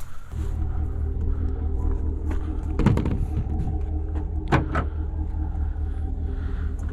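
A thump at the start, then a truck engine idling with a steady low rumble, heard from inside the cab. Two brief sharper sounds rise over it about three and four and a half seconds in.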